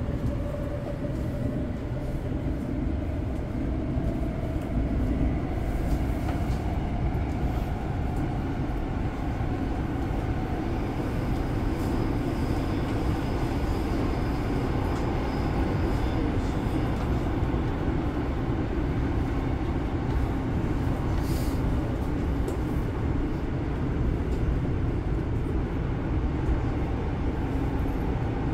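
Seoul Subway Line 9 train heard from inside the car running through a tunnel: a steady rumble of wheels on rail, with a faint motor whine climbing in pitch over the first ten seconds or so as the train picks up speed.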